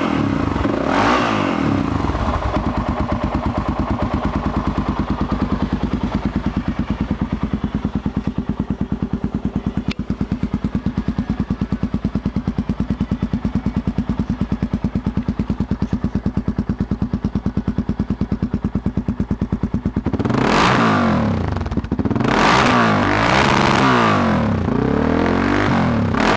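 2008 Honda NX4 Falcon motorcycle's single-cylinder engine, settling from a rev to a steady, even idle in the first two seconds. About twenty seconds in, the throttle is blipped and the engine is revved repeatedly, its pitch rising and falling, until the end.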